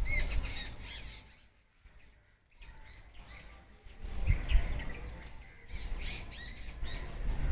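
Birds chirping and squawking in short clusters of quick calls, with a near-silent gap about two seconds in and a low rumble underneath in the second half.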